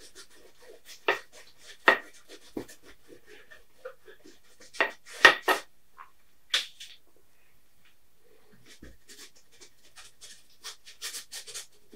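A few sharp taps and scrapes of paint-brush work, then short scratchy strokes of a long-handled brush laying oil paint on canvas near the end.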